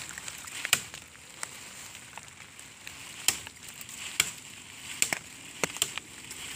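Machete chopping at dry bamboo: a string of sharp, irregular hacks, some louder than others.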